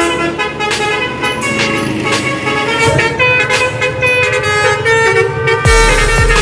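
Bus 'basuri' telolet air horn playing a melody, its multi-tone notes changing pitch step by step. A deep steady bass comes in near the end.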